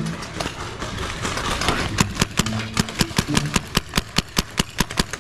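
Paintball markers firing in quick succession: from about two seconds in, sharp pops come about five a second.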